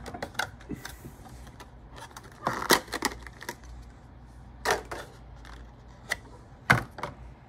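Thin clear plastic card tray from a Pokémon collection box crackling and clicking as it is handled and the cards are pried out of it, with scattered sharp snaps, three of them louder than the rest.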